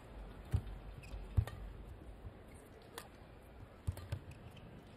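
Badminton rally: sharp racket hits on the shuttlecock and thuds of the players' footwork on the court, a handful of separate clicks and knocks over a low steady hum.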